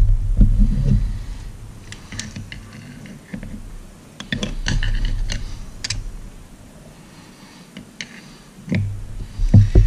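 Light metal clicks and scrapes of a screwdriver working at the lower bearing and oil seal in an outboard's aluminium lower crankshaft end cap, scattered in a few short clusters, while the part is being worked loose.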